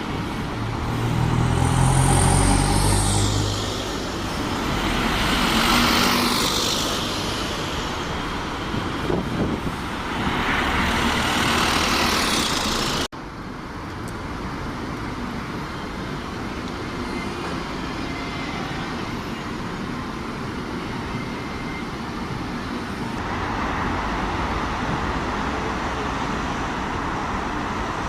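Road traffic with heavy vehicles: a deep diesel engine rumble swells and fades, more vehicles pass, then after an abrupt cut a steady traffic noise runs on.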